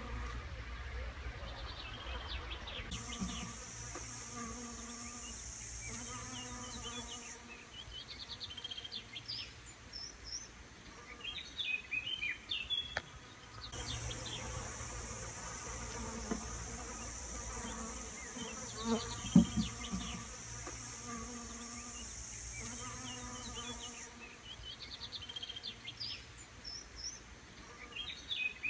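Honeybees buzzing as they fly around and forage on flower heads, the buzz swelling and fading as individual bees come and go, loudest as one passes close about two-thirds of the way through.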